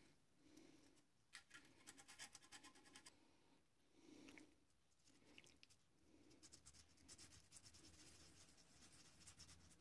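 Near silence with faint scratching in short bouts: the alternator's connection points being scraped clean.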